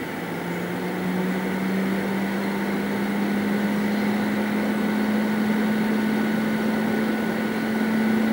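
Electric locomotive standing at a station platform, humming: a steady low hum comes in about half a second in and slowly rises in pitch, with fainter steady higher whines above it.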